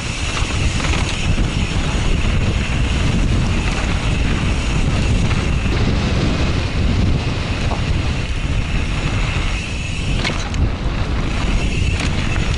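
Wind rushing over the microphone of a camera on a mountain bike descending, with the tyres rolling on dirt. Two sharp knocks near the end as the bike hits bumps.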